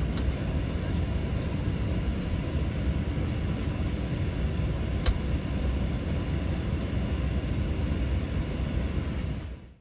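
Steady low cabin noise inside an Airbus A350-1000 airliner: the hum and airflow of the air conditioning while the aircraft is still parked. There is a single sharp click about five seconds in, and the sound fades out at the very end.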